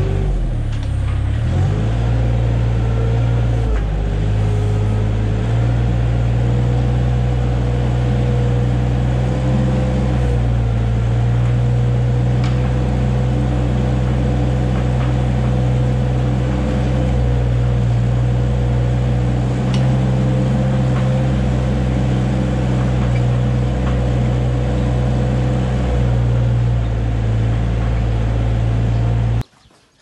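Small farm loader's engine running close up, steady after a brief change in engine speed in the first few seconds, then cutting off suddenly near the end.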